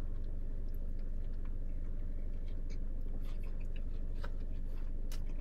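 Close-up chewing of a fried chicken sandwich on a soft bun: a bite at the start, then scattered small crunches and wet mouth clicks, over a steady low hum.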